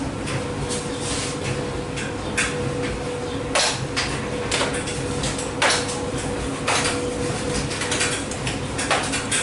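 Speed Queen stacked washer-dryer running, its drums tumbling: a steady motor hum with a faint steady tone, overlaid by irregular clanks and clicks about once a second as the tumbling load knocks against the drum.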